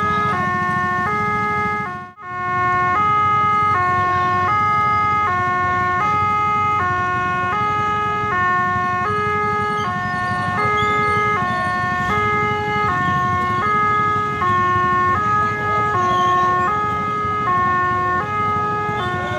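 Railway level-crossing warning alarm: an electronic two-tone signal alternating steadily between a higher and a lower note while the crossing barriers are down for a passing train. It cuts out briefly about two seconds in.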